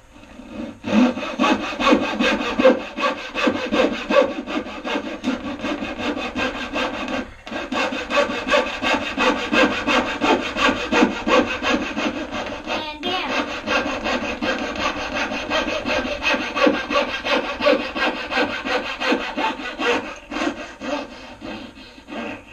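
Hand saw cutting wood with steady back-and-forth strokes, about two a second, pausing briefly twice and stopping near the end.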